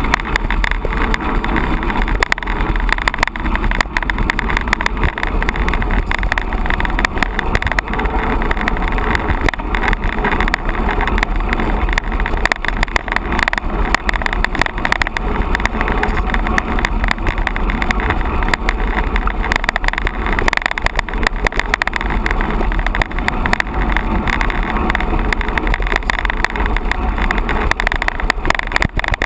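Mountain bike riding over rough ground, with steady wind rush on the microphone and constant small knocks and rattles from the bike.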